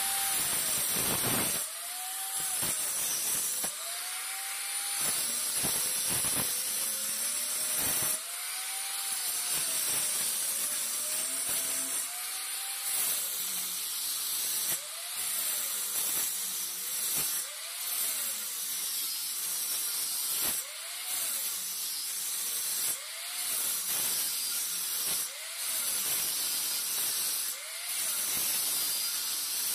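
Handheld angle grinder with a cutting disc cutting channels into a brick wall. Its motor whine keeps climbing and sagging in pitch, about every two to three seconds, as the disc is pressed into the brick and eased off, over a steady hissing cutting noise.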